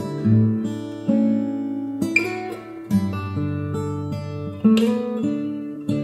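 Brook Torridge acoustic guitar played fingerstyle: a picked melody over plucked bass notes, the notes ringing on into one another.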